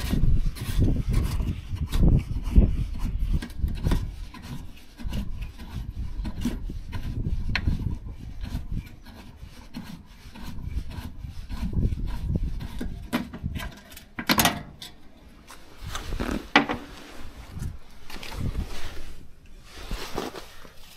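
Rubbing and scraping handling noise with scattered small clicks as the wing screws holding a Trabant 601's radiator grille are turned out by hand. A short scraping burst about two-thirds of the way in and a sharp click soon after.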